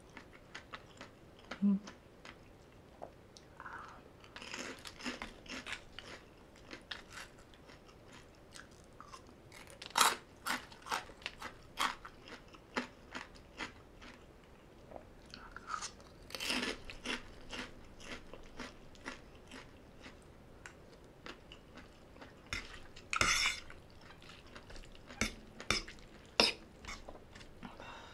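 Close-up chewing and crunching of mouthfuls of spicy green papaya salad, many short crisp clicks with a handful of louder crunches spread through.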